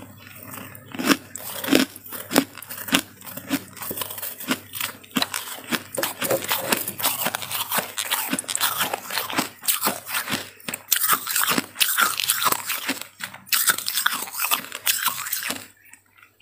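Soft freezer frost being bitten and chewed: a dense, irregular run of crisp crunches and crackles that stops shortly before the end.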